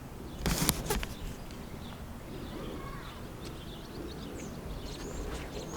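Outdoor ambience: a brief loud rustle about half a second in, then scattered faint, short, high bird chirps over a low background hiss.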